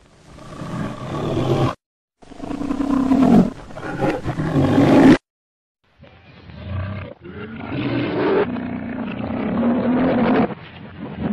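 Lion roars from the Metro-Goldwyn-Mayer logo's soundtrack: two stretches of roaring, each cut off suddenly into dead silence, then from about six seconds in a longer run of roars and growls in a duller, older-sounding recording.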